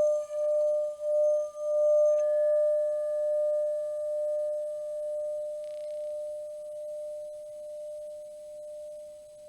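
A single pure ringing tone, wavering in loudness about twice a second at first, then ringing on and slowly fading away.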